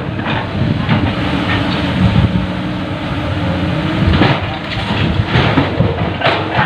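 Heavy diesel engines of an excavator and dump truck running steadily, with a few sharp clanks and knocks as padas stone is loaded into the truck.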